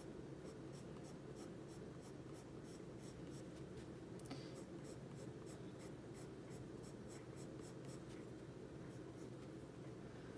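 A sepia Prismacolor coloured pencil scratching on paper in short, quick strokes, about three a second, as fine strands of hair are filled in. Faint.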